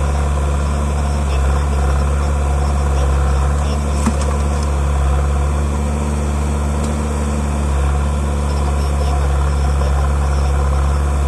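Heavy diesel engine idling steadily at an even pitch, with no revving, and a faint click about four seconds in.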